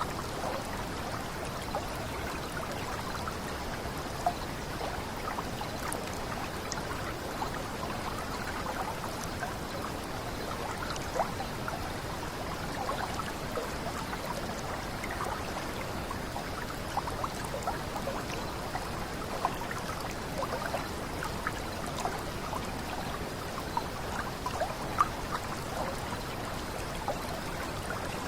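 Water of a small cascade splashing and trickling steadily, with many small drip-like splashes scattered through it.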